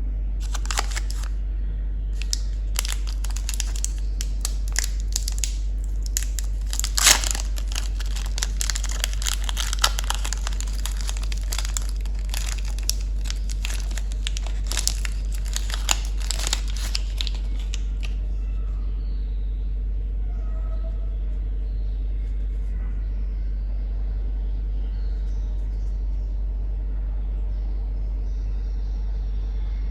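Candy wrappers being crinkled and torn open by hand: a dense run of sharp crackles that goes quiet a little past halfway. A steady low hum underlies it throughout.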